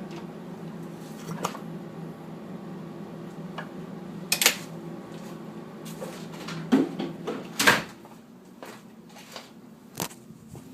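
An engine idling with a steady low hum, under several loud, irregular knocks and clicks; the hum drops away about eight seconds in. The owner asks whether the noise is piston slap.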